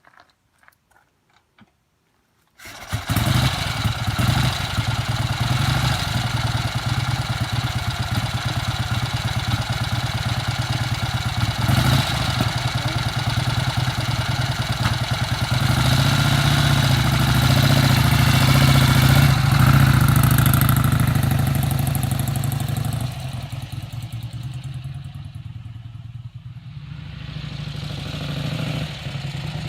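Vincent HRD Series A 998 cc V-twin motorcycle engine, freshly rebuilt, coming in abruptly about two and a half seconds in and running steadily. The revs rise for a few seconds in the middle, drop back lower, then pick up again near the end.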